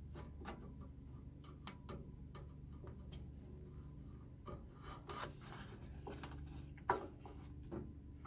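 A small stack of sticky notes rubbed and pushed into a narrow gap under a gantry rail, gauging the gap for a paper shim: faint scraping with scattered small clicks and rustles.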